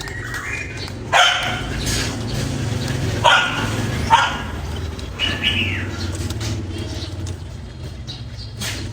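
Animal calls: a few sharp, loud calls about a second, three seconds and four seconds in, with high whining glides between them, over a steady low hum.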